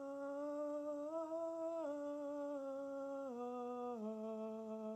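A man's voice singing a warm-up scale super quietly on an open 'ah' vowel, each note held smoothly: one step up about a second in, then back down in three steps. The voice is recovering from throat swelling and is kept relaxed and soft so as not to strain it.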